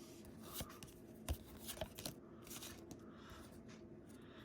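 Paper trading cards being handled: a few faint taps and scrapes as cards are slid and set down, the sharpest about a second and a half in, over a faint steady hum.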